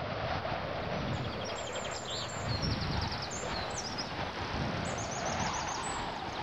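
Steady outdoor background noise with a small songbird singing high, rapid trilled phrases twice.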